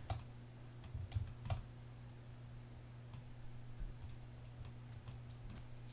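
Faint, irregular clicks of a computer keyboard and mouse, spaced unevenly a second or so apart, over a steady low hum.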